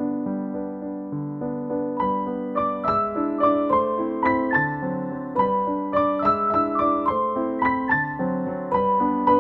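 Background music: a piano or electric piano playing a melody over sustained chords, busier and brighter from about two seconds in.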